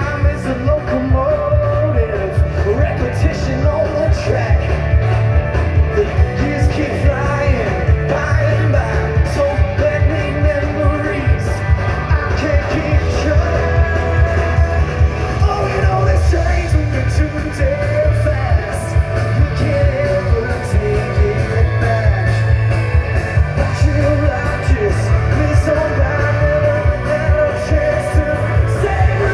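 A live rock band playing loud through a PA, with a singer, electric guitars and drums. The low end is heavy.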